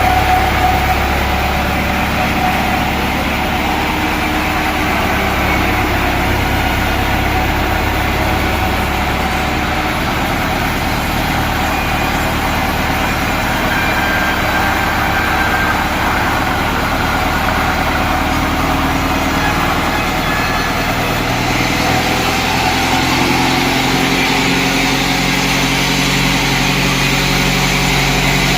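An engine running steadily at an idle, its low tone shifting slightly about ten seconds in and again a little past twenty seconds.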